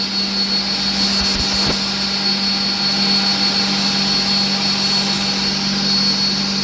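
Steady drone of the edge-banding machine and its extraction running, with a constant low hum and a high whine, and a few light knocks about a second and a half in.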